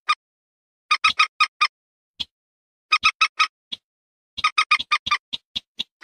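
Bird-lure recording of wetland bird calls, common moorhen and rail: short sharp notes in quick groups of four or five with gaps between, then a longer, faster run of notes from about four and a half seconds in.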